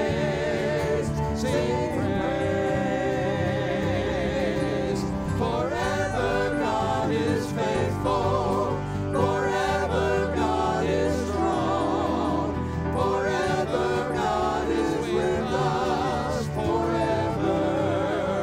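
Church worship band and singers performing a worship song, many voices singing together over instrumental accompaniment.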